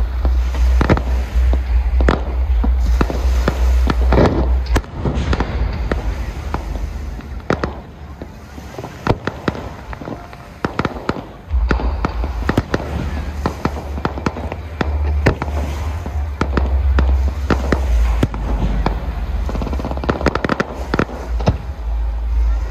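Aerial fireworks display with a dense, irregular run of sharp bangs and crackling shell bursts and a heavy low rumble underneath. The rumble drops away for several seconds in the middle.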